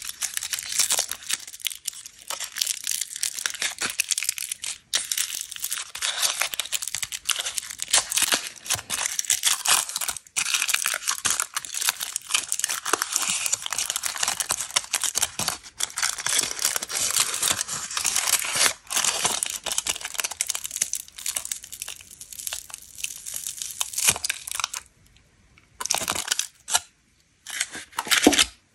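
Foil candy wrapper crinkling and tearing as it is peeled open by hand, a dense, crisp crackle. Over the last few seconds it breaks into a few short bursts with pauses between.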